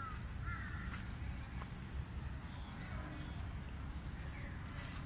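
A crow cawing, one clear call about half a second in and fainter calls later, over a steady low rumble.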